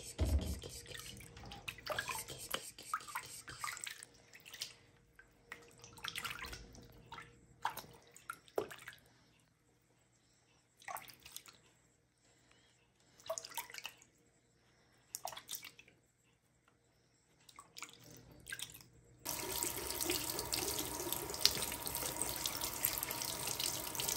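Water splashing and sloshing in a sink in short bursts with quiet gaps as a tiny kitten is washed by hand. About 19 seconds in, the tap comes on and water runs steadily.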